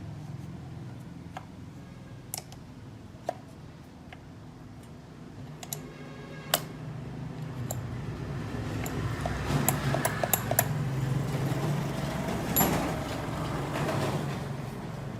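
Metal parts and tools clinking and knocking against each other in sharp, scattered clicks, several in quick succession near the middle, over a steady low rumble.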